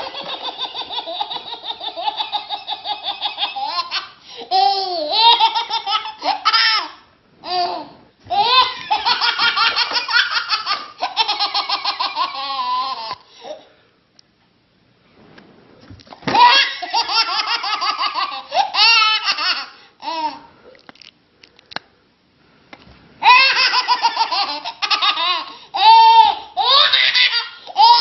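A baby laughing hard: long fits of rapid, high-pitched belly laughs that come in several bouts, broken by short pauses for breath.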